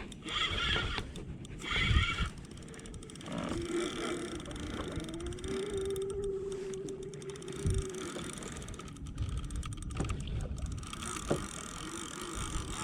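Spinning reel being cranked in against a hooked fish, its gears giving a steady whine for a few seconds in the middle, with scattered knocks and clicks.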